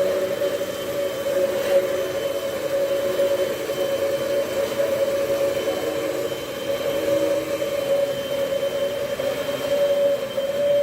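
Hoover vacuum cleaner running steadily, its motor giving a constant whine over a rushing hiss.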